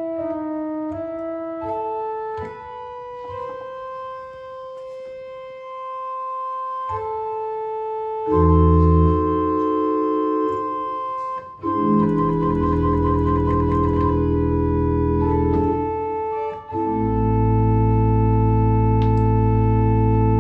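Historic 1869 Wilhelm Remler pipe organ, newly restored, being played. A light melodic line of single notes comes first. About eight seconds in, loud full chords with deep bass take over, broken by two short pauses, and the last chord is held long.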